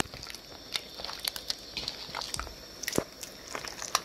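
Ripe plantain pieces being squeezed and mashed by hand in a bowl: soft, irregular squishes and small clicks, with one sharper click about three seconds in.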